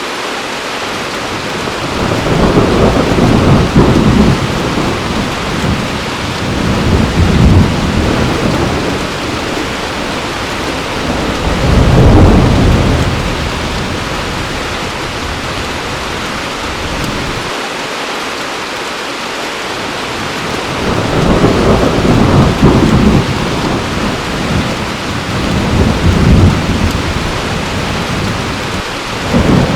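Heavy rain pouring steadily, with low rolling thunder swelling and fading several times through it.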